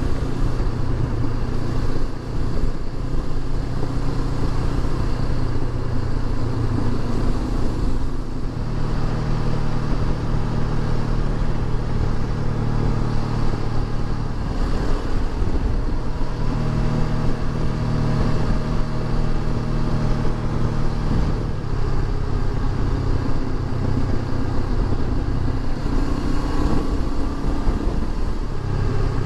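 Honda CB500X's parallel-twin engine running at road speed under a steady rush of wind noise. Its pitch drops and rises a few times as the rider changes speed and gear.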